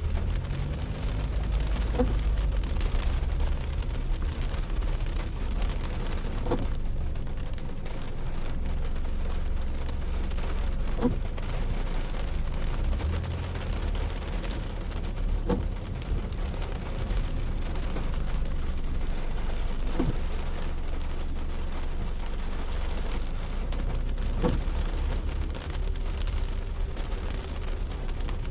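Thunderstorm with heavy rain and gusting wind, the wind buffeting the microphone with a deep rumble. A faint short knock repeats about every four and a half seconds.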